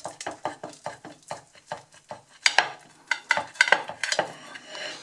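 Chef's knife slicing through a baked thin-crust pizza on a plate: a run of short, crisp crunching crackles, denser and louder in the second half.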